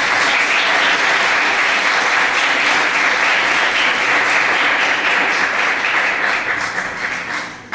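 Audience applauding steadily, the clapping thinning out and dying away near the end.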